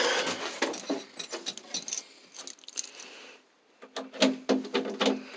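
Keys jangling and scattered small clicks and knocks, the sound of an ignition key and switches being worked. There is a brief near-silent pause about three and a half seconds in, and a faint steady hum joins the clicks near the end.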